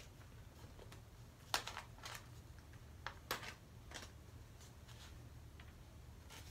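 Faint rustling of folded sheets of paper, with a few sharp little ticks as a push pin is pushed through the template's holes into a new sheet.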